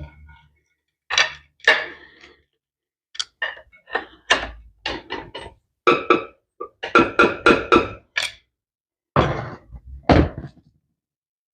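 Repeated hammer blows on metal with a ringing tone, knocking at a stuck motorcycle kick-starter cover to loosen it. They come in bursts, the fastest run about four blows a second, and stop about ten and a half seconds in.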